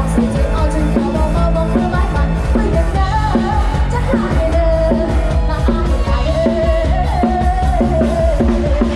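Lam sing band music: a singer holds long notes over a steady beat of drums, bass and electric instruments.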